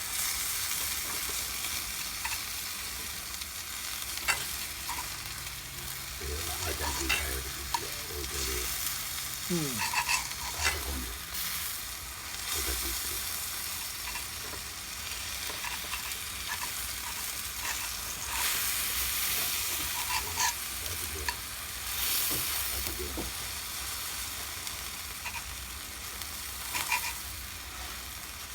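Rib steak sizzling over a wood fire in a fire pit: a steady frying hiss with scattered sharp pops and crackles.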